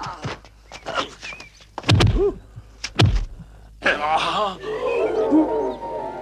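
Kung-fu film fight sound effects: two heavy punch impacts about a second apart, among the fighters' shouts and grunts. Music comes in during the second half.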